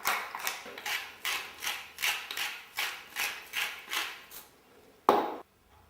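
Pepper mill being twisted over the pan, a steady run of short crunchy grinding strokes, about two and a half a second, that stop after about four and a half seconds. A single knock follows about five seconds in.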